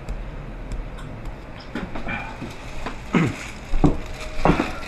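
A man retching and gagging into a plastic bag: several short heaving bursts that fall in pitch, the loudest in the last two seconds, with faint ticks before them.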